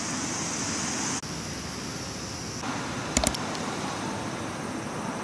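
Steady background noise that changes abruptly about a second in and again a little later, with two sharp clicks about three seconds in.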